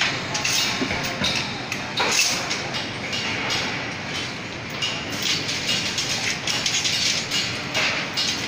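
Construction-site noise: irregular metallic clanks and knocks over a steady din.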